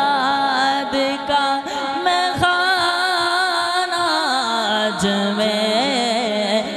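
A man singing a naat into a microphone, stretching a line into long, sliding ornamented notes with no clear words, over a steady low drone.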